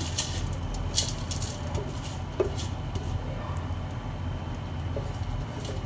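Silicone spatula scraping ground chana dal paste out of a bowl into an aluminium pot, a few soft scrapes and taps over a steady low hum.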